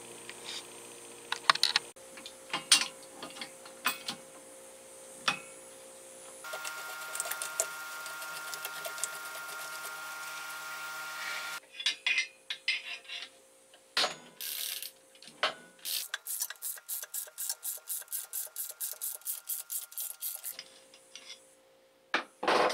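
Hand-tool work on a bearing puller clamped over an electric motor's rotor shaft: scattered metal knocks and clicks, then a stretch of steady hum with several tones. After that comes a run of quick, even clicks, about five a second, as the puller's screw is turned to draw the bearing off, and a sharp knock near the end.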